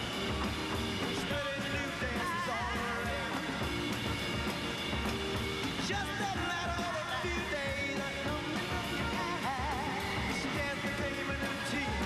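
Live rock and roll band playing: a male lead voice singing with a second singer, over organ, guitar and drums.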